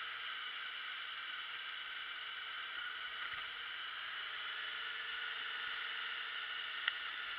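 Steady rushing wind and road noise on the camera of a moving motorbike, with one sharp click near the end.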